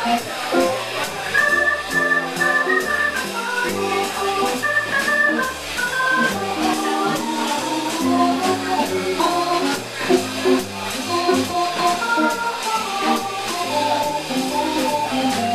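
Live jazz combo playing a swing tune: a Hammond organ takes an instrumental solo in melodic runs over a walking bass line, with drums keeping time on the cymbals and electric archtop guitar alongside.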